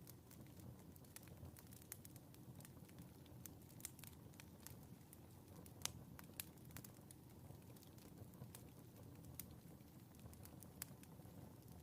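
Faint wood fire crackling in a fireplace: irregular sharp pops and snaps over a low, steady rumble, with a few louder pops about six seconds in.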